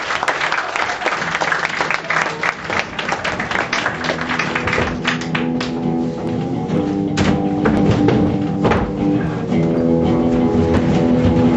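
Audience applause dying away as music comes in: guitar-led music with a regular beat, which grows fuller after the first few seconds.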